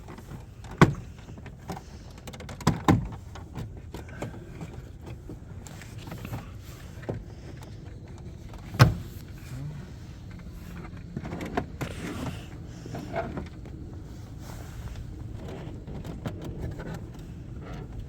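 Car interior plastic trim being worked loose and handled: scattered clicks and knocks with some rustling, the loudest about a second in and again near nine seconds in.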